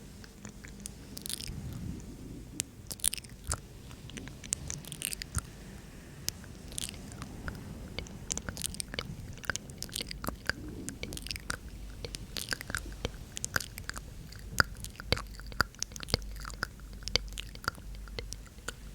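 Close-up ASMR mouth sounds: quick, irregular wet mouth and tongue clicks, growing denser after the first few seconds, with a few soft breathy sounds early on.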